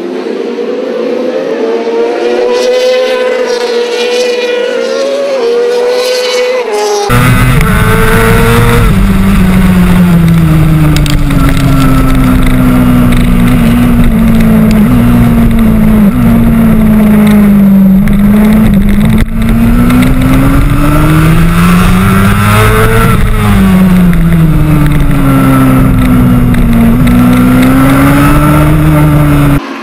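Racing motorcycle engines at speed on a circuit, the revs rising and falling as a bike goes by. About seven seconds in the sound cuts to one bike heard on board: a loud engine with a heavy rush of wind, its revs sinking slowly and then climbing and dropping again through the corners.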